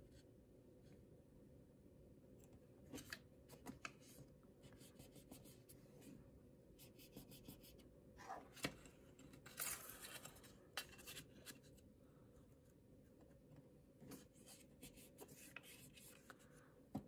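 Faint rustling and light crinkling of a paper flower envelope being creased by hand against a ruler, in scattered short bursts and soft taps over a low room hum.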